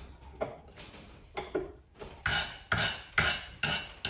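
Hand wire brush scrubbing corrosion off an antique key. A few scattered strokes come first, then from about two seconds in steady back-and-forth scraping strokes, about two a second.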